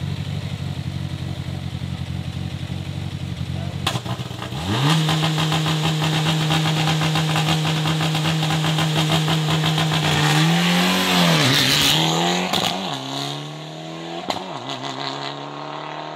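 Mitsubishi Lancer Evolution X rally car's turbocharged four-cylinder engine idling at the stage start, then revs raised and held steady for about six seconds before launch. It then pulls away hard, the note dipping and rising with gear changes, and fades as the car drives off.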